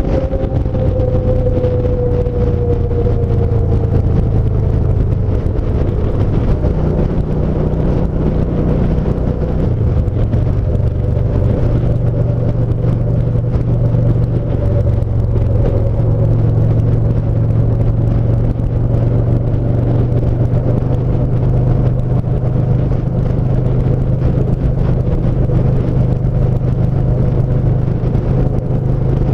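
Yamaha SCR950's air-cooled V-twin running at steady cruising speed, with tyre and wind noise. Its note eases down slightly over the first couple of seconds, then holds steady.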